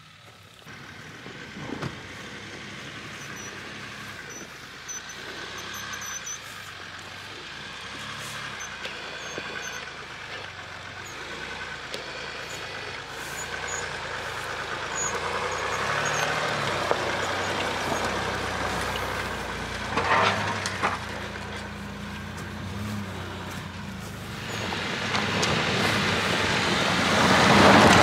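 SUV engines (a Dacia Duster and a Land Rover Discovery) working up a steep, snowy slope on rear snow chains, with chains and tyres scrabbling over the ground. The sound grows louder through the clip, with a short loud burst about two-thirds of the way in and a loud rush of tyre and chain noise over the last few seconds.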